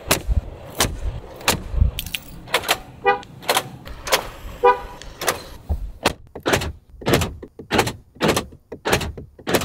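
Mercedes G-Class horn chirping twice briefly, about three and five seconds in, as the key fob is pressed to lock or unlock it. Under it runs a steady beat of sharp clicks, about three a second.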